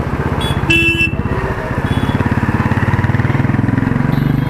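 Motorcycle engine running as the bike rides through traffic, its revs rising over the last two seconds and dropping near the end. A short vehicle horn beep sounds about a second in.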